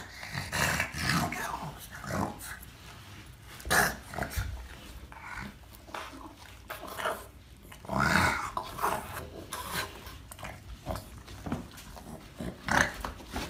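A dog rubbing and sliding itself along carpeted stairs, fur scuffing on the carpet, with short grumbling noises from the dog.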